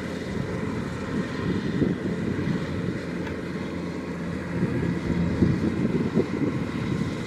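Kubota DC-105X rice combine harvester running steadily, its engine and machinery making an even hum with a few louder swells.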